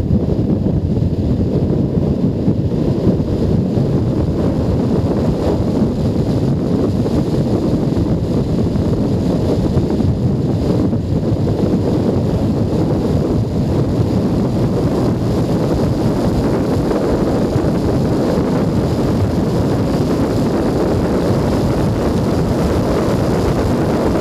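Wind rushing over a helmet-mounted microphone on a Junak M12 Vintage 125 cc motorcycle cruising at road speed, with the engine running underneath. The low, steady rush holds evenly throughout.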